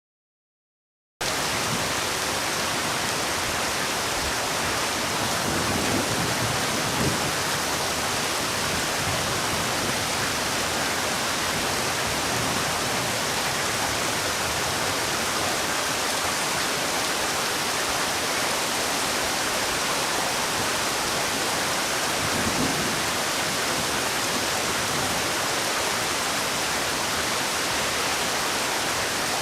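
Heavy rain falling as a steady, dense hiss, starting abruptly about a second in after silence.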